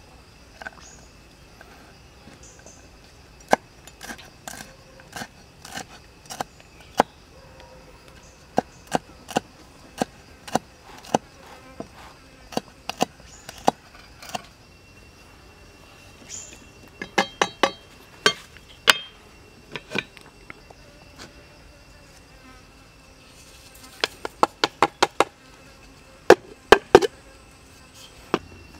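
A large knife chopping fresh red chilies on a round wooden chopping board: sharp knocks of the blade on the wood, some single and some in quick runs. A steady insect buzz runs underneath.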